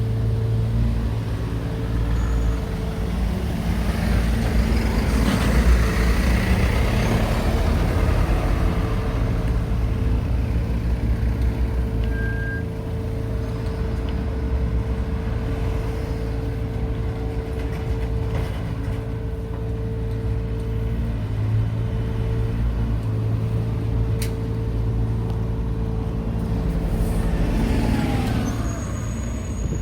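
Road traffic: a vehicle engine idling with a steady hum, with other vehicles passing about five seconds in and again near the end.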